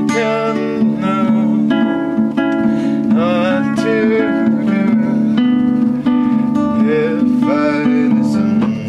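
Indie folk song: strummed acoustic guitar with a man's voice singing short phrases that slide in pitch.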